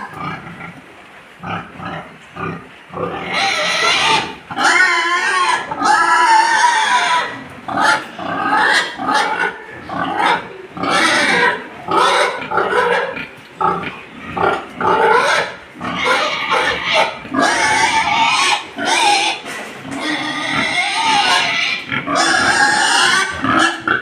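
Boar grunting over and over in quick, short calls that waver in pitch. The calls are quieter for the first few seconds, then loud and nearly unbroken.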